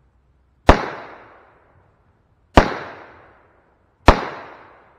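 Three shots from a Freedom Arms Model 83 revolver firing light .45 Colt handloads, spaced about a second and a half to two seconds apart. Each is a sharp report followed by a fading echo of about a second.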